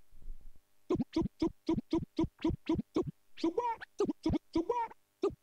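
Vinyl scratching on a turntable, with the record pushed back and forth by hand to play a sound as a drum rhythm. About a second in come evenly spaced scratch strokes, about four a second. From about three and a half seconds in they give way to a quicker, uneven run of fuller strokes.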